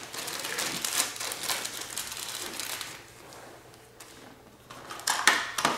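Hands handling small parts: rustling with many small clicks for about three seconds, then quieter, with a few sharper clicks near the end.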